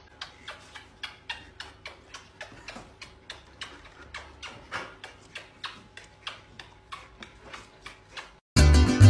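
A rapid run of short, sharp clicks, about three or four a second and uneven in strength, which stops suddenly near the end.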